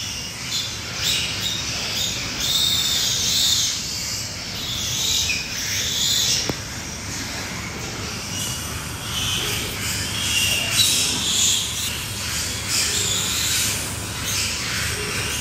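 Piglets squealing over and over, short high-pitched squeals overlapping one another, over a steady low hum.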